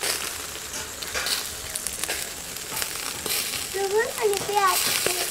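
Cooking oil dripping from a basting spoon onto hot charcoal under skewered whole chickens, sizzling with steady hiss and scattered crackles.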